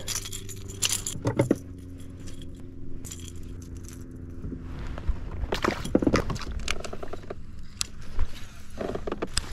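Small metal items jangling and clicking in a few short clusters, about a second in, around six seconds in and again near the end, over a steady low hum.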